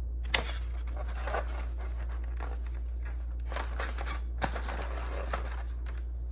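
Packaging being handled while a model locomotive is unpacked: rustling and scraping with a few sharp clicks, over a steady low hum.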